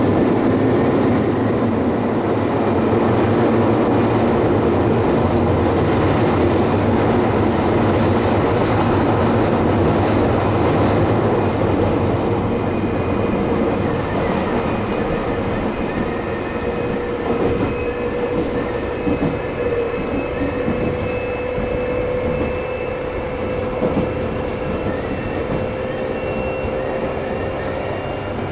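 Nagano Electric Railway 8500 series electric train heard from inside the car while running between stations in the tunnel: loud, steady rumble of wheels on rail with a whine from the drive that rises slightly in pitch. The noise eases a little in the second half.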